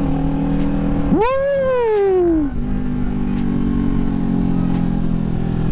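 Kawasaki Ninja 400 parallel-twin engine under way: it revs up sharply about a second in, the pitch falls away over the next second and a half, and then it runs steadily.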